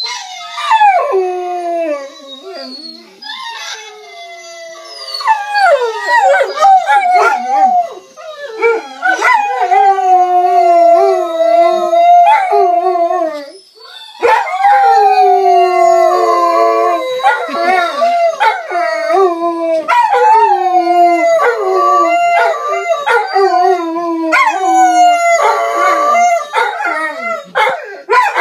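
German shorthaired pointers howling, long wavering howls with more than one voice overlapping, answering a recording of their own howling. Softer for the first few seconds, then loud and sustained, with a short break about halfway through.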